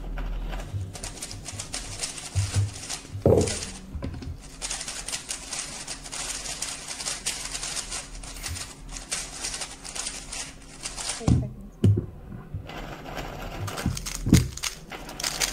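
Fast plastic clicking and rattling of a 3x3 speedcube being turned, with a short pause near the end before the clicking starts again.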